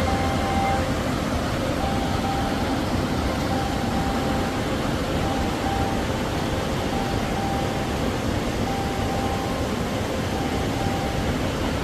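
Rushing water of a mountain stream and waterfall: a loud, even, unbroken rush.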